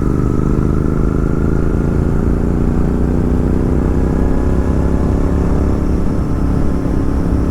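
Royal Enfield Continental GT 650's parallel-twin engine running through an aftermarket Red Rooster exhaust while riding, its pitch slowly falling as the bike eases off.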